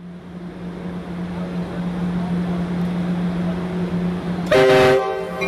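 Amtrak passenger train at the platform with a steady low diesel hum, and a short multi-note horn blast of about half a second some four and a half seconds in.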